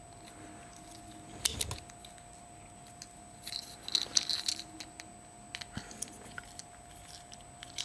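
Small plastic Kinder Surprise toy parts being handled and fitted together: scattered light clicks and rattles, with a cluster of clicks a little after the middle, over a faint steady hum.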